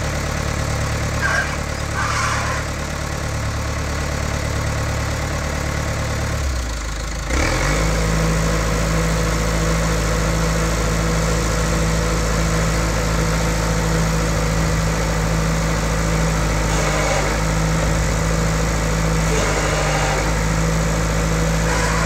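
John Deere 310C loader backhoe's turbo diesel engine idling, then revved up about seven seconds in and held at a higher, steady speed.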